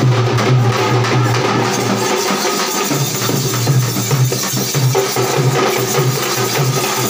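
Hand drums beaten in a steady rhythm, in the manner of Tamil thappu frame drums played for a bull run.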